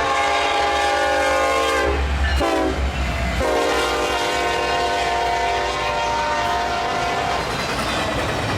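Diesel locomotive air horn sounding a chord of several notes: a long blast ending about two seconds in, a brief short blast, then another long blast lasting about four seconds. A steady low rumble of the train runs underneath.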